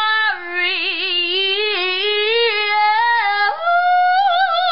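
A woman singing long wordless notes unaccompanied, the pitch wavering with vibrato, then leaping up to a higher held note about three and a half seconds in.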